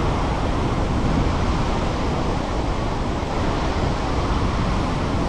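Fast, heavy river current pouring out through dam gates: a steady rushing roar of churning water.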